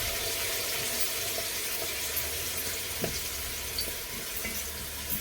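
Curry and masala frying in hot oil in a pot: a steady sizzle, with a light knock about three seconds in.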